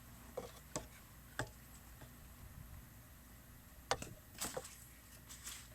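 Faint scattered clicks and taps of handling noise, about six of them with the loudest near the middle, over a low steady hum.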